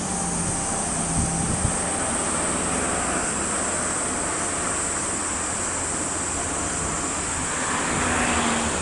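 Steady outdoor background noise, wind and passing road traffic, with a constant high hiss; it swells slightly near the end.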